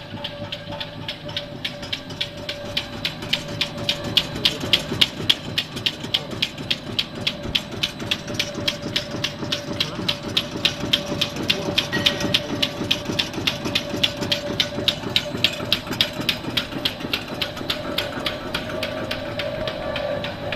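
PVC corner-bead profile extrusion line running, with rapid, regular mechanical clacking, several strokes a second, over a steady tone and a hiss.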